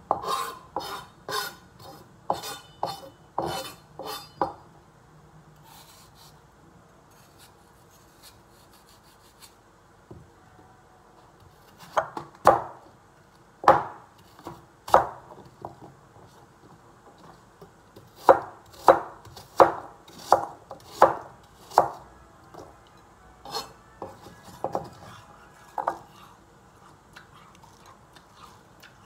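Large kitchen knife chopping a raw vegetable into chunks, the blade knocking sharply on the cutting surface. The knocks come in runs, quick at first, then slower and evenly spaced, with pauses between the runs.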